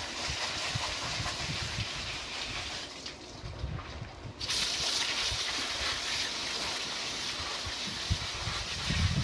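High-pressure spray nozzle on a hose, jetting water onto the roots of turnips on a mesh wash table with a steady hiss. The spray drops off about three seconds in and comes back stronger about a second and a half later.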